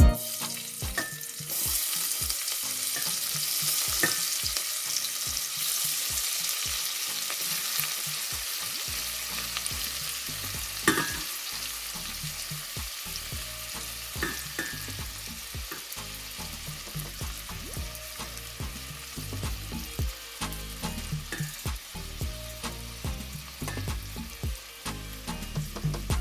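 Food sizzling in hot oil in a pot, stirred with a utensil that now and then clicks against the pot. The sizzle is steady, swells a second or two in and slowly eases off, with one sharper knock about eleven seconds in.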